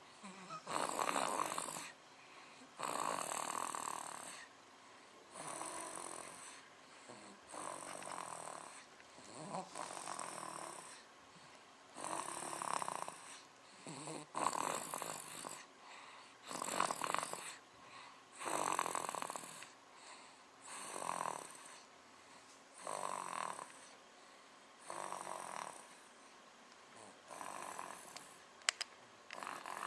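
A sleeping baby snoring: a noisy breath about every two seconds, in a steady, regular rhythm. One sharp click near the end.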